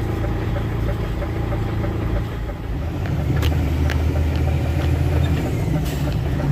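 Truck engine running steadily. About two and a half seconds in, its hum dips briefly, then carries on louder and at a slightly lower pitch, with a few faint clicks.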